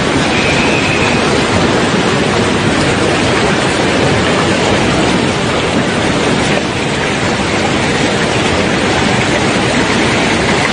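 Muddy floodwater rushing down a street, a loud, steady wash of water noise.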